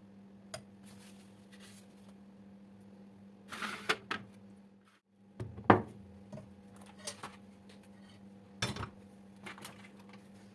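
Dishes and utensils being handled: scattered clinks and knocks, the loudest a sharp knock about six seconds in, over a steady low hum.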